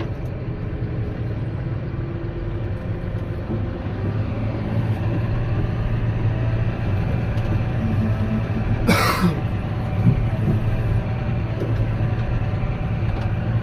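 John Deere 6155R tractor's diesel engine running steadily, heard from inside the cab, with a short rushing noise about nine seconds in.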